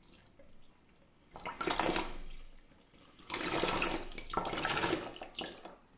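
Water poured into a plastic bucket onto a dry compressed coconut-coir brick, in three splashing pours of about a second each starting about a second in: topping the soak up toward the three litres the brick needs to swell.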